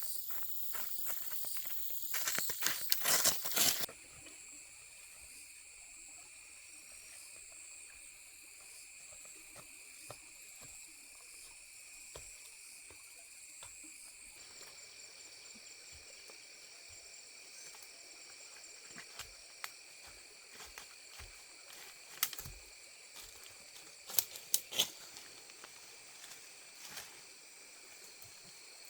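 Steady chirring of insects, with a rapid run of clicks and knocks about two to four seconds in and a few scattered sharp knocks later.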